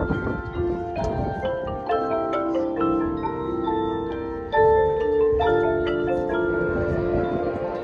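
High school marching band playing, with marimba and other mallet percussion prominent over held chords; the band comes in louder about four and a half seconds in.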